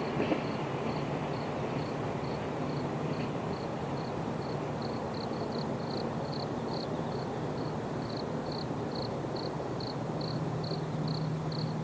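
Insect chirping in short, evenly spaced high-pitched pulses, about two to three a second, over a steady low rumble.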